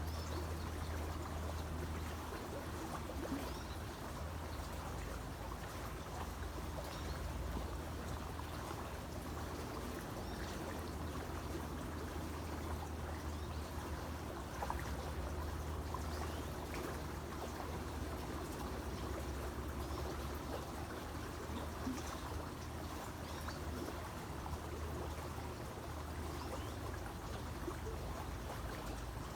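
Creek water flowing and trickling steadily, over a steady low rumble.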